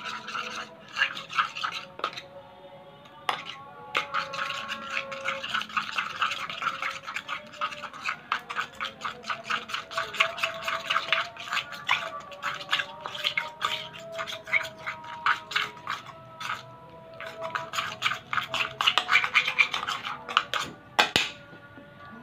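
A spoon stirring and scraping PVA-glue slime fast in a paper bowl as the borax activator thickens it, making a rapid run of sticky clicks and squelches that pauses briefly a few times. Background music plays underneath.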